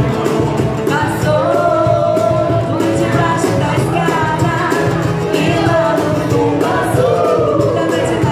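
Live band: a woman singing a melody into a microphone over strummed guitars, acoustic and electric, amplified through a small PA.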